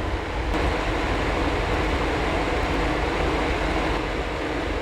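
Soldering exhaust fan running steadily, a constant rushing hum close by.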